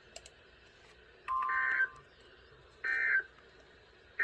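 Emergency Alert System SAME digital data bursts on a weather radio broadcast: short buzzy two-tone bursts, one about a second and a half in and a shorter one near three seconds, with a third just starting at the end. This is the end-of-message signal that closes a severe thunderstorm warning.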